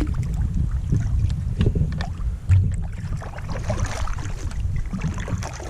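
Wind buffeting the microphone with a heavy low rumble, over knocks and water splashing around a fishing kayak. One louder thump comes about two and a half seconds in.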